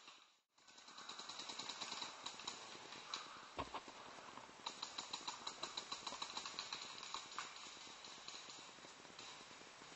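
Paintball markers firing in quick runs, sharp pops at about four to five a second that come and go. There is a single dull knock about three and a half seconds in.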